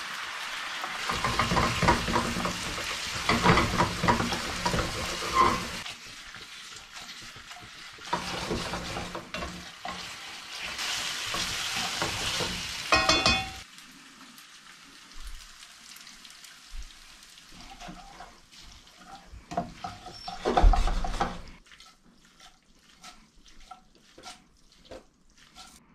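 Spaghetti sizzling in olive oil and pasta water in a stainless steel frying pan while it is stirred and tossed with tongs. Two loud stretches of sizzling come in the first half. Then it goes quieter, with scattered clicks and a single loud thump about three-quarters of the way through.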